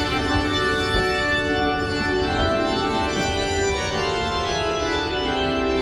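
Organ music playing sustained chords, starting suddenly and changing chord every second or so, over a steady low rumble.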